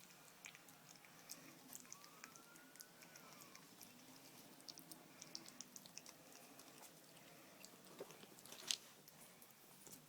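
A cat chewing and biting pieces of cooked chicken: faint, irregular wet clicks and crunches, with one sharper click near the end.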